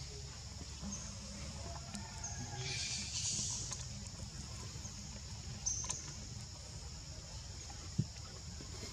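Outdoor background sound: a steady high-pitched drone over a low rumble, a brief louder hiss about three seconds in, and one sharp click near the end.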